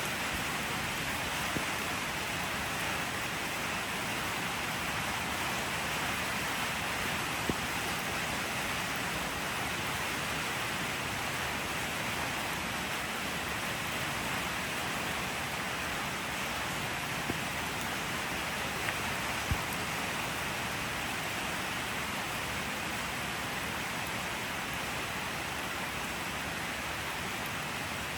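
Steady rain falling, an even hiss with a few faint sharp drop ticks now and then.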